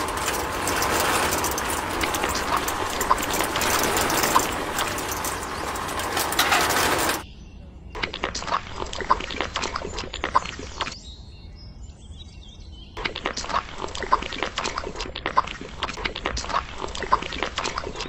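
Wet cement being handled in miniature: a small bucket tipped out and a tiny trowel scraping and tapping at the cement, in quick small clicks and scrapes. The first seven seconds are a steady loud noise that drops away suddenly, and light bird chirps sit in the background.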